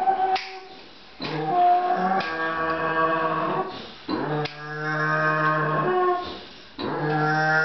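Pig screaming while held on its back for a hoof trim: a string of long, loud, steady squeals, each a second or two, one after another with brief breaks.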